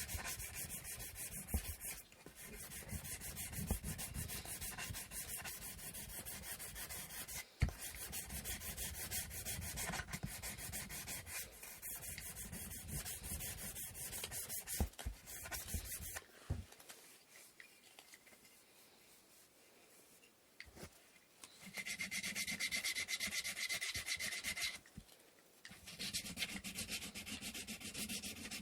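Sanding the wooden parts of an inkle loom with sandpaper, in rapid back-and-forth strokes. The sanding stops for about five seconds past the middle, then resumes in two shorter spells near the end.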